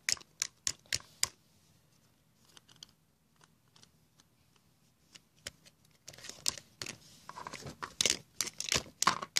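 Hard plastic dinosaur toy figures knocked and scraped together and handled close to the microphone: a quick run of sharp clicks and taps, a quiet stretch, then a longer spell of clattering and rustling about two-thirds of the way in.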